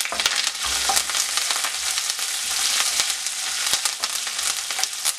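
Tempering for lemon rice sizzling in hot oil in a nonstick wok: freshly added curry leaves frying with chillies, cashews, peanuts and dals, stirred with a spatula. A steady sizzle runs under scattered sharp clicks.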